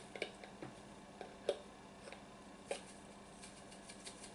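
Scattered light clicks and taps of a spice jar being shaken to tip dried parsley flakes into a measuring spoon. The clicks come irregularly, the loudest about a second and a half in, with fainter ones toward the end.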